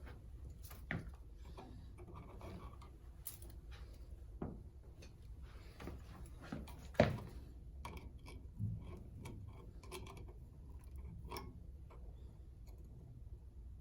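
Scattered small clicks, taps and rustles of hands working electrical wires and a wall switch in a switch box, with one sharper click about seven seconds in.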